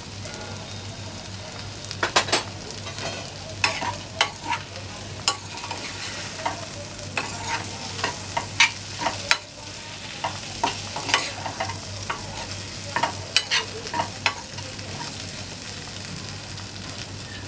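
A metal spoon stirs diced boiled potatoes frying in oil in a pan, with a steady sizzle and frequent sharp scrapes and taps of the spoon against the pan. A low steady hum runs underneath.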